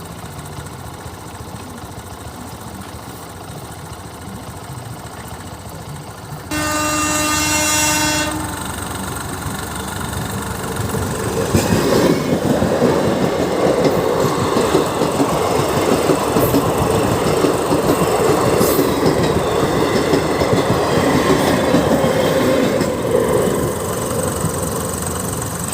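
Train horn blowing one long blast of about two seconds as the train nears the level crossing. About twelve seconds in, the train starts passing the crossing: a loud rumble with wheels clattering over the rails, easing a little near the end.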